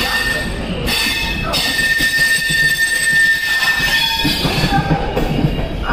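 LHB passenger coaches of a departing train rolling slowly past the platform, wheels rumbling over the track with a thin, steady high squeal from the wheels in the first second and again for a couple of seconds from about a second and a half in.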